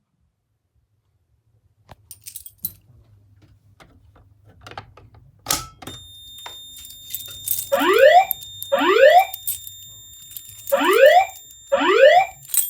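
Fire alarm speaker-strobes of a Notifier DVC voice-evacuation system sounding an alert tone: loud rising whoop sweeps, each under a second long, about once a second, with a short gap after the second. These come after a few scattered clicks and a sharp knock, under a faint steady high whine.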